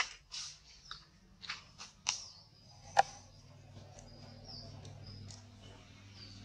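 Baby macaque giving short, high-pitched squeaks and cries, several in quick succession in the first two seconds, then a few faint thin calls. A single sharp click about three seconds in.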